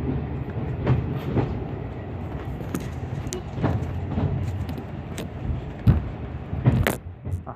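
A moving heritage passenger train heard on board: a steady low rumble of the running train, broken by irregular sharp knocks and clatters from the wheels and carriage, the loudest near the end.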